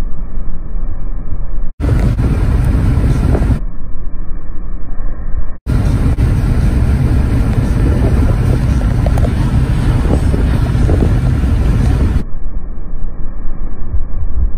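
Loud road and wind noise of a moving car, mostly a deep, steady rumble. It drops out for an instant twice, about two and six seconds in, and sounds duller in some stretches.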